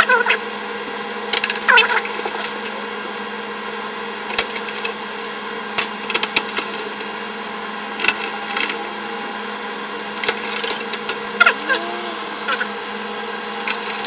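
Hand screwdriver driving screws through a motherboard into the standoffs of a metal PC case: irregular short clicks and scrapes of metal on metal. A steady hum runs underneath, with a few moments of indistinct muttering.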